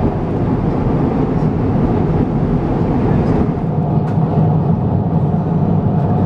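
Steady rushing drone inside an Airbus A350-1000 cabin in cruise, from airflow and its Rolls-Royce Trent XWB engines.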